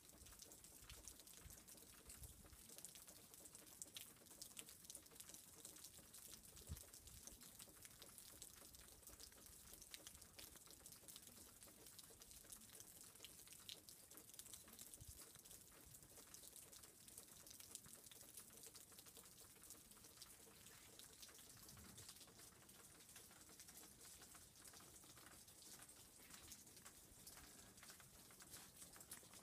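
Faint, steady patter of wet snow falling on surfaces, a dense crackle of tiny ticks, with a few soft low bumps.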